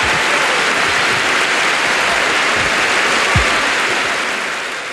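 Audience applauding, a dense even clapping with a few low thumps, fading out near the end.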